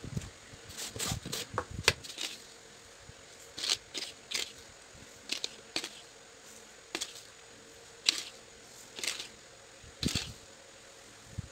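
Granulated sugar poured from a paper packet onto tomatoes in open glass jars, a series of short hissing pours about one a second.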